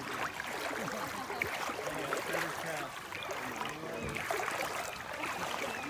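Indistinct talk among several people over the steady wash of flowing river water.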